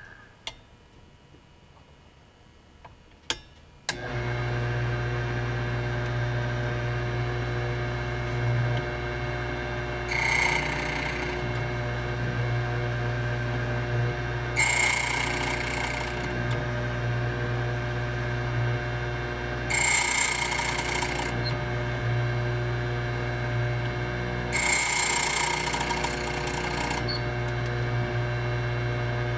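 HPC Blitz 1200 electric key-cutting machine switching on about four seconds in and running with a steady motor hum. Four times, for a second or two each, the cutter bites into the brass key blank with a louder, bright cutting sound.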